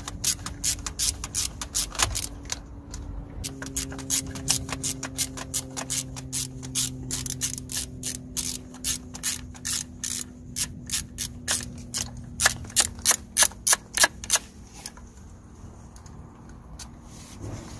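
Hand ratchet clicking rapidly, about four clicks a second, as a Torx T30 bit winds out a bolt on the EGR valve; the clicks get louder near the end and stop about fifteen seconds in. A faint steady hum runs underneath for several seconds.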